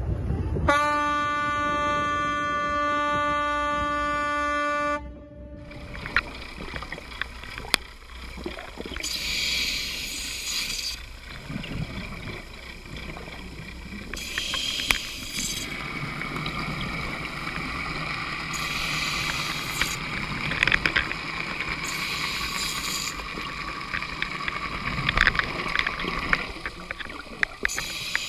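A boat's horn sounds one long steady blast for about four seconds. Then, underwater, a scuba diver's regulator breathing: a hiss of exhaled bubbles swelling every few seconds, with scattered small clicks.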